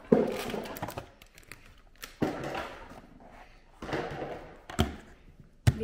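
Small cardboard puzzle boxes being picked up, slid and set down on a wooden table: rustling and sliding between about four sharp knocks, the loudest just after the start and just before the end.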